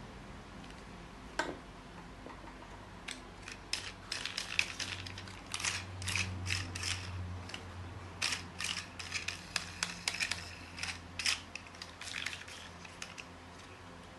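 A run of irregular light clicks and snips, like small hard parts being handled, over a faint low hum. One sharp click comes about a second and a half in, and the clicks come thick from about three seconds until near the end.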